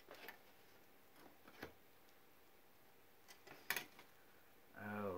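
Plastic-bagged model-kit parts being handled in a cardboard box: a few faint clicks and crinkles of plastic. A man's voice starts near the end.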